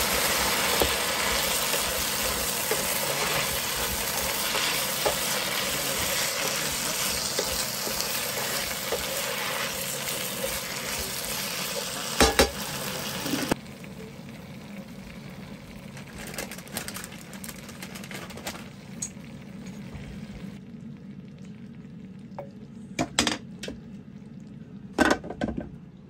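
Shaved steak, onions and peppers sizzling in an electric skillet. The sizzle is loud and steady for about the first half, then drops suddenly to a softer sizzle, with a few sharp clicks and scrapes of a spatula against the pan.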